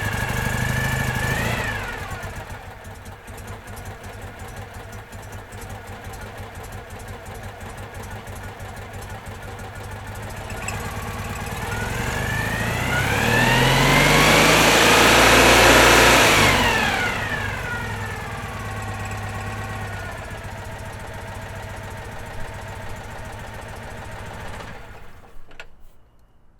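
Citroën 2CV's air-cooled flat-twin engine running: it settles from a brief rev to idle, is slowly revved up and let fall back to idle about halfway through, then cuts off near the end.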